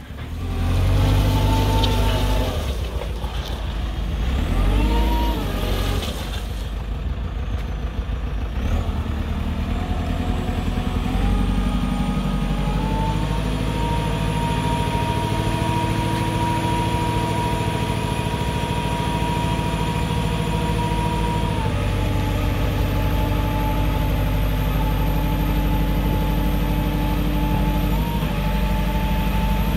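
JCB 524-50 telehandler's 75 hp diesel engine running while the boom hydraulics raise and extend the boom. The engine revs up and down in the first few seconds, then settles into a steady note under a steady whine, which steps down in pitch about two-thirds of the way through.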